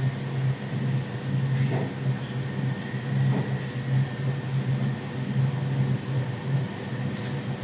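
Steady low electrical hum of a running appliance such as an air conditioner, with a few faint clicks of a small knife cutting vegetables held in the hand.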